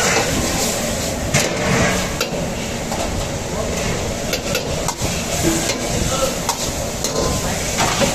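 Metal ladle clanking and scraping against a steel wok as onions, peppers and sauce are stir-fried, with a steady sizzle underneath. Sharp clanks come at uneven intervals, about one a second.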